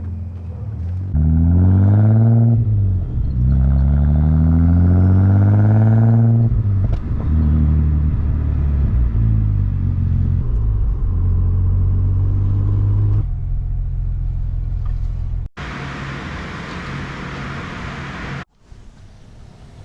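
Audi B5 S4's 2.7-litre twin-turbo V6, with upgraded K04 turbos, pulling hard under acceleration: its pitch rises, drops at a gear change about three seconds in, and rises again through the next gear before settling to a steady drone. About fifteen seconds in, the sound cuts to a loud, even hiss for about three seconds.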